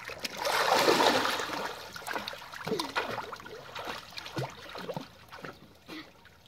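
A child plunging into a backyard swimming pool with a big splash about half a second in, then smaller splashes and water sloshing as he swims across.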